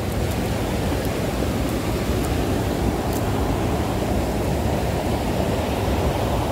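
Steady rush of a fast, churning river, with a few faint ticks over it.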